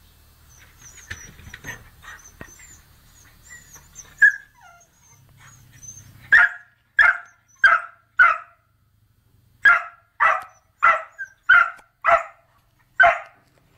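A dog barking: a single bark about four seconds in, then a run of about ten sharp barks, roughly two a second, with a short pause partway through.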